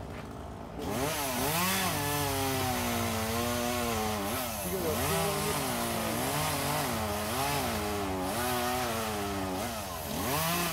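Chainsaw engine running up in the tree, its pitch rising and falling over and over as it is revved through cuts. It is quieter for about the first second, then picks up.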